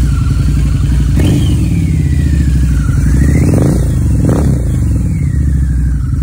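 Harley-Davidson V-Rod Muscle's liquid-cooled Revolution V-twin running loudly through Vance & Hines Competition Series slip-on mufflers, idling with short throttle blips about a second in and again around the middle.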